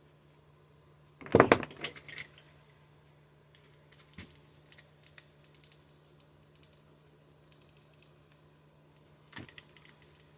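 A carpet knife cutting through the plastic jacket of an electrical cord: a cluster of louder handling clatter about a second in, then scattered small clicks and scrapes of the blade working through the insulation, with another brief clatter near the end.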